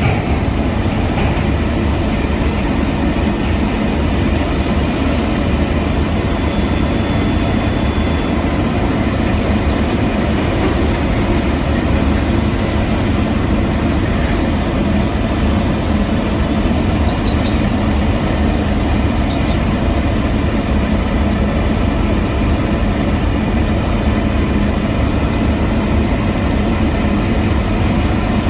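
Diesel engines of heavy road-paving machinery running steadily, a constant low rumble with no breaks.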